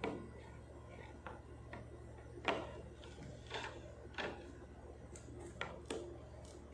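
Small plastic clicks and knocks, irregular and spaced about half a second to a second apart, from a mobile phone stand being handled and fitted together, over a steady low hum.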